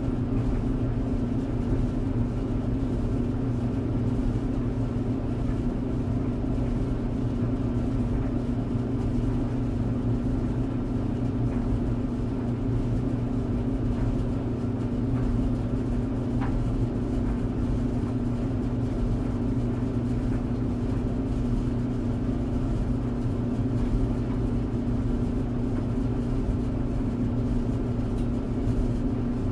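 Clothes tumble dryer running steadily: an even low hum and rumble from the turning drum and motor, with a few faint ticks midway.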